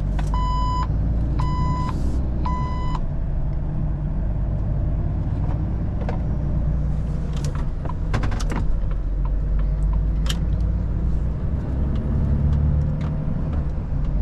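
Volvo FH 460 truck's six-cylinder diesel running steadily under way, heard from inside the cab, with three short electronic beeps about a second apart near the start. A few sharp clicks come through in the middle.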